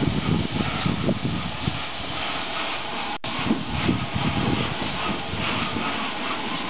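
2-6-2 side tank steam locomotive No 5542 moving slowly past at close range, with a steady hiss of escaping steam over a low, uneven rumble.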